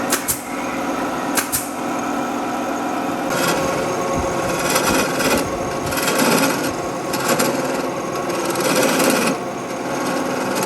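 A power tool running steadily on wood, with repeated bursts of harsher noise from about three seconds in as it works the wood.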